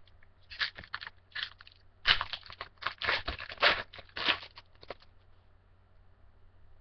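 Baseball trading cards and their foil pack wrappers being handled on a desk: a quick run of short, sharp rustles that stops about five seconds in.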